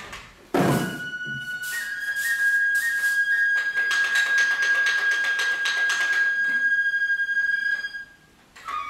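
Festival music for a Japanese three-lion dance: a loud drum beat about half a second in, then a flute that holds one long high note for about six seconds over quick drum strikes. It breaks off briefly near the end before starting again.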